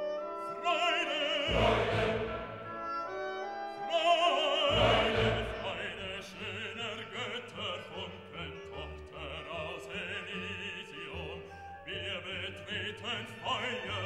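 Background classical music: an operatic voice singing wavering held notes over an orchestra.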